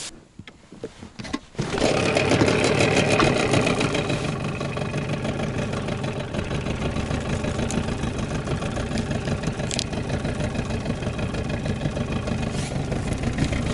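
Boat outboard motor starts about a second and a half in, runs up loudly for a couple of seconds, then settles into steady running.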